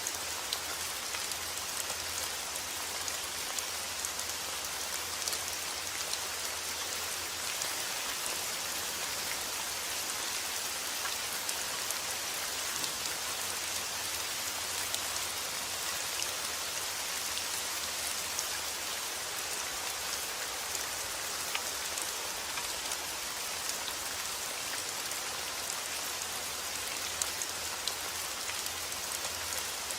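Steady rain falling, a dense even hiss with fine drop ticks, over a faint low rumble.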